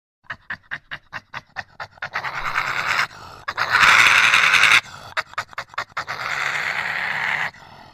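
Badger calling: a quick run of short huffs, about five a second, then longer harsh hissing calls broken by a few more huffs, cutting off sharply near the end.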